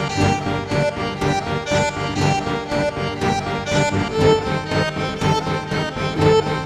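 Instrumental background music: a run of quick, evenly paced melodic notes over sustained lower tones.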